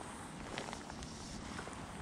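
Footsteps of an angler wading slowly through shallow lake water, with scattered small splashes and knocks.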